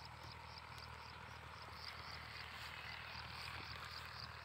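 Rhythmic high-pitched chirping from calling wildlife, about four pulses a second, over a steady low outdoor hum.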